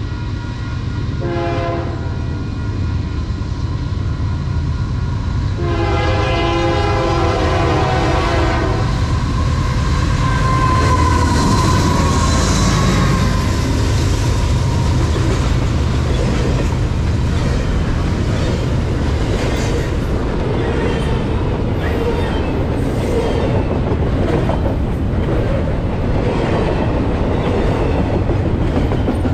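Union Pacific intermodal freight train led by GE C44ACM and AC4400CW locomotives: the locomotive horn sounds a short blast about a second in and a longer blast of about three seconds, then the locomotives go by and double-stack container cars roll past with a steady heavy rumble and wheel clatter.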